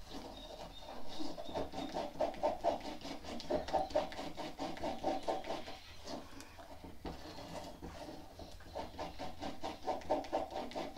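Silicone spatula stirring and scraping wet cement mix in a silicone mixing bowl: rhythmic scraping strokes, several a second, quieter for a couple of seconds in the middle.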